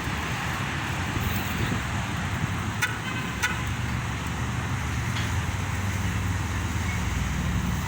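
Road traffic: a steady rumble of passing cars, growing louder near the end.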